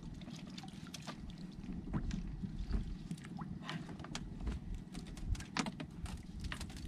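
Water splashing and lapping around a small fishing boat, with scattered short splashes and knocks over a steady low rumble.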